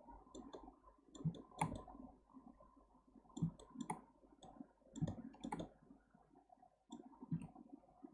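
Computer mouse button clicks and keyboard key taps, many short sharp clicks coming in irregular clusters.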